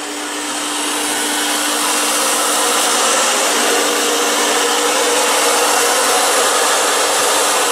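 A machine running steadily: a loud whooshing noise with a faint hum in it, building up over the first second or two and then holding level.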